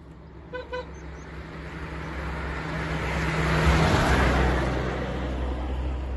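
A 1966 MG Midget's four-cylinder engine and tyres as the car drives past, growing louder to a peak about four seconds in and then easing off as it pulls away. Two short horn toots sound just under a second in.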